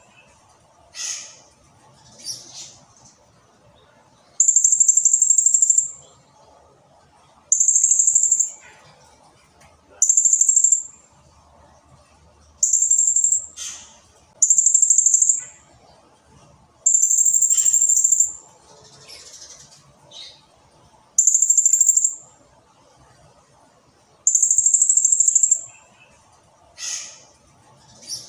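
Blue-crowned hanging parrot (serindit) singing: about eight shrill, very high-pitched trills of about a second each, with short falling chirps between them.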